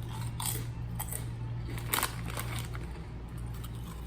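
Potato chips being chewed, a few short crunches. A steady low hum runs underneath.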